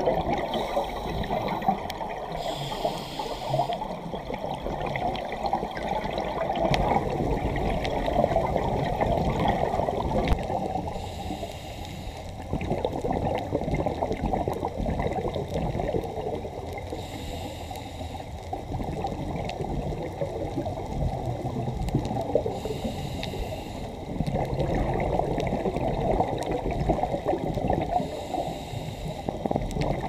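Muffled underwater rush picked up by a camera in a waterproof housing, with bursts of scuba divers' exhaled regulator bubbles gurgling every several seconds.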